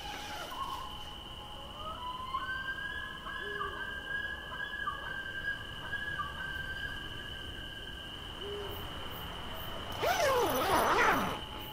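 Night ambience with a steady, high cricket trill, under held tones that glide and waver. About ten seconds in comes a loud, harsh screech with sweeping, falling pitch, lasting about a second and a half.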